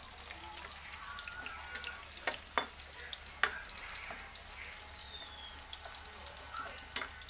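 Diced carrots sizzling in hot oil in a metal pan as they are stirred, the utensil clicking sharply against the pan a few times. The carrots are browning, nearly ready to be scooped out.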